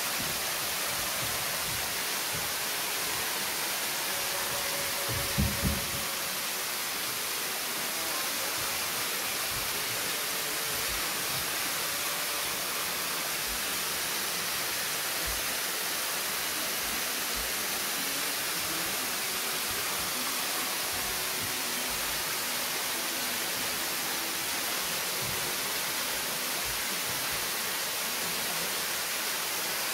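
A tall waterfall pouring down a rock face into a plunge pool: a steady, even rushing hiss. A brief low double thump comes about five seconds in.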